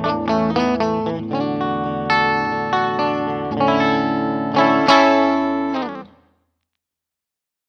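Seven-string multiscale electric guitar with three single-coil pickups wired in series, playing a run of picked notes and ringing chords. A sharp chord hits about five seconds in, rings for a moment and stops suddenly.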